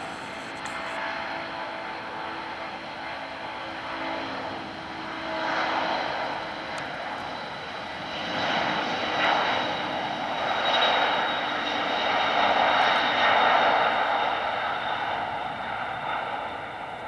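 Airbus Beluga (A300-600ST) cargo jet's twin GE turbofan engines running at take-off power during its take-off roll. The noise swells as the aircraft passes, is loudest through the middle and eases near the end.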